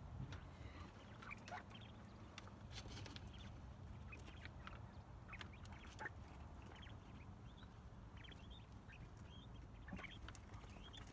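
Quail chirping faintly: many short, soft peeps scattered through, with a few faint clicks.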